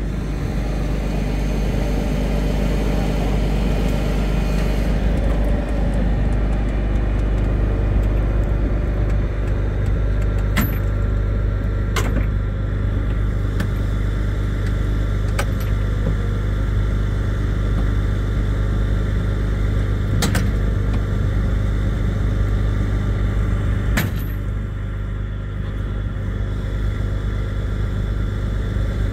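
Heavy wrecker tow truck's diesel engine running steadily while its line pulls on a wrecked delivery truck. A handful of sharp clicks or knocks come at irregular moments.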